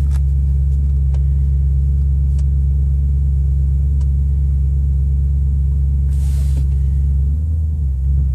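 Audi S4's 4.2-litre V8 idling steadily just after a cold start, with a brief change in the idle a little before the end; the grinding it makes on some cold mornings is not heard here.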